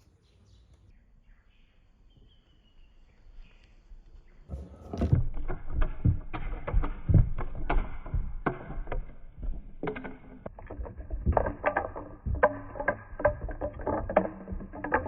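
Marbles rolling and clattering down a marble run: quiet at first, then about four and a half seconds in a dense, irregular run of clicks and knocks begins as many marbles hit and roll along the track, with a faint steady ringing tone.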